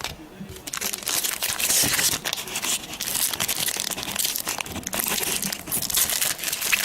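A trading-card pack wrapper crinkling and tearing as it is opened by hand: a dense, crackly rustle that starts a little under a second in.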